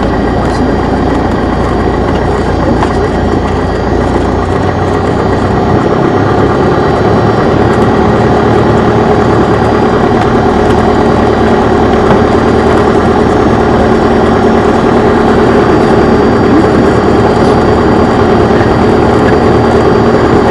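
Light single-engine propeller plane's engine running at low taxi power, a steady drone heard from inside the cockpit; its low note shifts slightly about four and a half seconds in.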